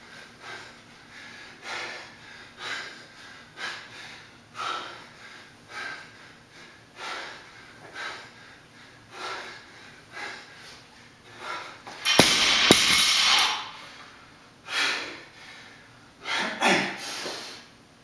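Hard, rhythmic breathing from exertion, one forceful exhale about every second, during barbell thrusters. About twelve seconds in, a barbell loaded with bumper plates to 100 lb is dropped to the floor: a loud crash and a bounce about half a second later, then more heavy breathing.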